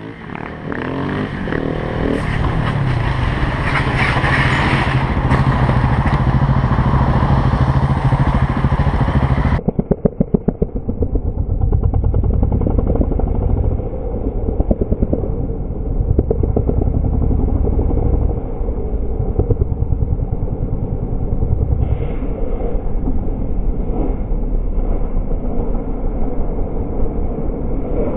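Motorcycle engine running at speed from the riding bike's point of view, its pitch rising and falling as the throttle is worked, over a rush of wind. About ten seconds in, the sound turns duller and loses its top end.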